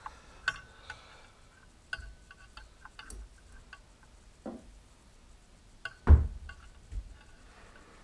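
Light metallic clicks and clinks as the parts of a dividing head are handled and its index plate is lifted off, with a heavier knock about six seconds in and a smaller one a second later.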